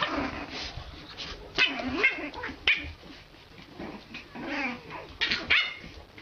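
French bulldog puppies whimpering and yipping in a string of short, high-pitched squeals, loudest about a second and a half in and again near the end.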